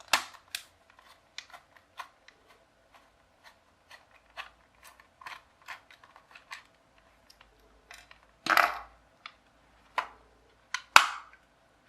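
Hard plastic toy gun casing and its parts being handled and taken apart by hand: scattered light clicks and taps, with louder knocks near the start, about two-thirds of the way in and twice near the end, the one about two-thirds in a longer scrape.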